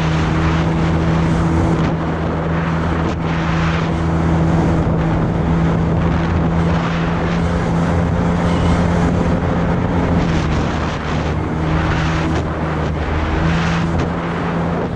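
Jet ski engine running steadily at cruising speed, with water rushing past the hull and wind buffeting the microphone. The engine note eases for a few seconds about ten seconds in, then picks back up.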